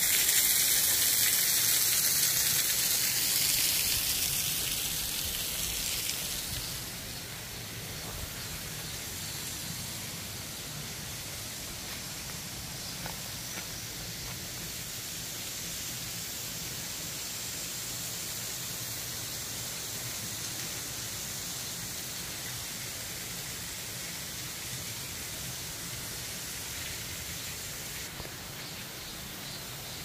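Small waterfall splashing over rock, a bright steady rush that fades about seven seconds in to a softer, steady hiss of running water.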